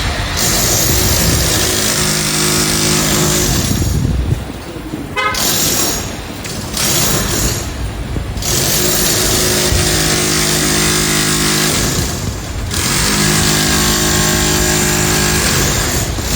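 Construction-site pneumatic breaker hammering loudly in long runs with several brief pauses, over a steady pitched engine hum.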